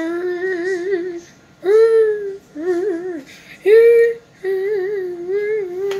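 A girl's voice singing a short run of held, wavering notes in about five phrases with brief pauses between them.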